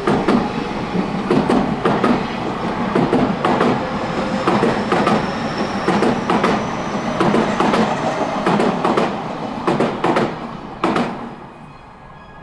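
Odakyu electric commuter train running through the station at speed, its wheels clacking over rail joints in quick irregular strokes. The sound drops away suddenly about 11 seconds in as the last car passes, then fades.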